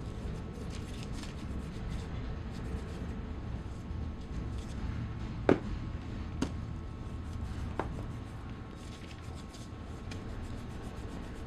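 Light rubbing and scratching on a polished leather boot as the excess polish is wiped off, over a steady low hum. A sharp knock comes about five and a half seconds in, with two fainter ones soon after.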